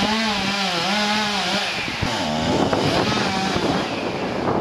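Petrol chainsaw cutting through a fallen tree, its engine revving up and falling back in repeated swells, with a brief drop about two seconds in; the engine note fades out about three and a half seconds in, leaving rough noise.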